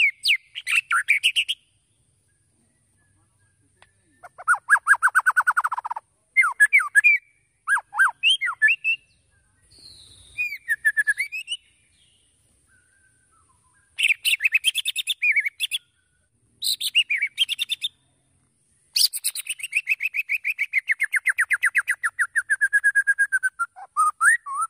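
White-rumped shama singing in bursts of rapid, varied phrases with short silent pauses between them. The last phrase is a long, fast string of notes that slowly falls in pitch.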